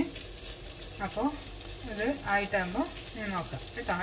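Ivy gourd and sliced onion sizzling in a pan, stirred with a wooden spatula. From about a second in, a voice speaks in short phrases over the frying.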